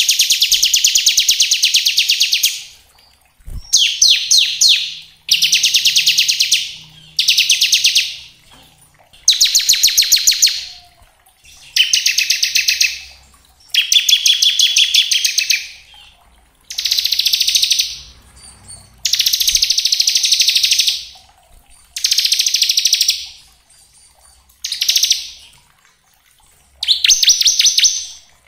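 Bar-winged prinia (ciblek) singing its 'ngebren' song: a dozen rapid, machine-gun-like buzzing trills, each one to two seconds long, separated by short pauses.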